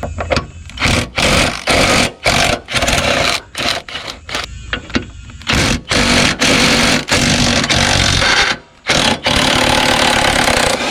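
Impact wrench running in repeated bursts, some short and some over a second long, with brief pauses between them, as it backs out the 13 mm bracket bolts at the front of the Mustang's rear subframe.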